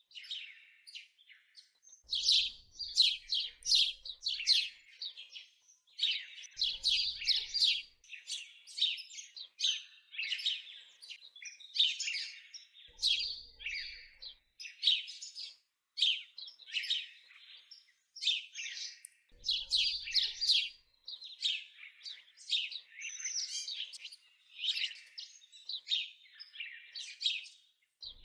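Songbirds chirping and singing in quick, high runs of notes, phrase after phrase with short gaps between them.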